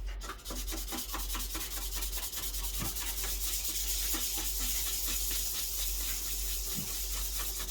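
Quick, even back-and-forth rubbing on an air compressor's metal valve part, scrubbing off built-up dirt and carbon so the reed valve will seal.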